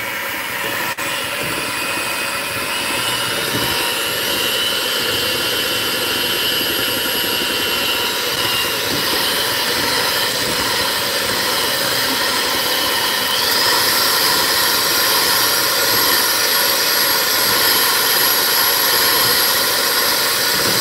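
Electric hand mixer running steadily, its beaters whipping cream cheese and sweetened condensed milk in a glass bowl. Its whine jumps higher and a little louder about two-thirds of the way through.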